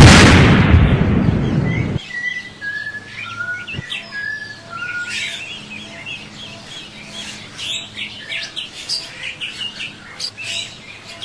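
Loud sudden blast at the start that dies away over about two seconds, then wild birds chirping and whistling, a few clear whistled notes followed by many short chirps.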